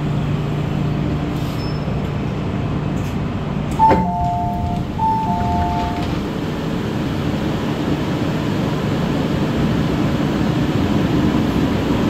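MTR M-Train electric metro train running, a steady rumble that builds slightly. About four seconds in there is a sharp click, followed by two short two-note beeps.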